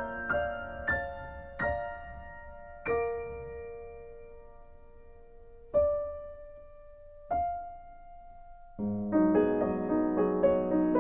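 Background piano music: a few notes, then slow single notes left to ring and fade, and fuller, busier playing starting again about nine seconds in.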